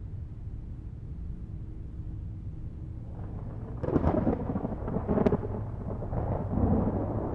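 Low ominous drone that swells into a heavier, rough rumble about four seconds in, with a sharp crack near the middle of the swell.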